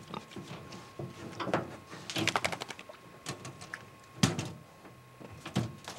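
Irregular clattering and knocking of a hog feeder's lid as a pig noses at it with her snout, with the loudest knock about four seconds in.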